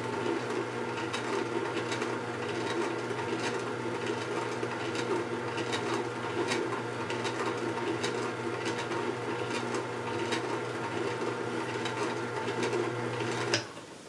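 Tribest Slowstar SW-2020 vertical single-auger slow juicer running, a steady low motor hum with light irregular clicks, reading about 59 dB on a meter a foot or so away. It switches off shortly before the end.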